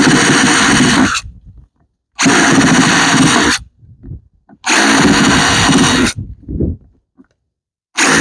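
Power drill whirring in three runs of about a second and a half, with short pauses between, as holes are drilled in a planting container; a fourth run starts right at the end.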